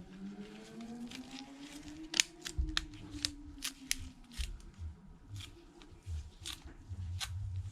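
Small phone parts and tools being handled and fitted on a bench during reassembly of a smartphone: an irregular string of sharp clicks and taps.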